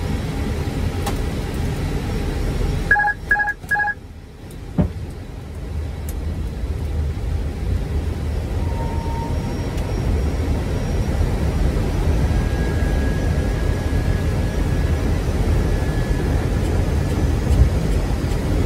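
Steady low cockpit noise of an Airbus A320 on approach. About three seconds in come three short electronic beeps in quick succession, followed by a brief dip in the noise and a single click.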